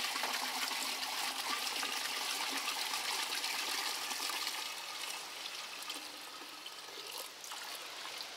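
Petrol pouring from a 10-litre canister into a bucket of bitumen chunks: a steady splashing stream that weakens about five seconds in as the canister runs empty.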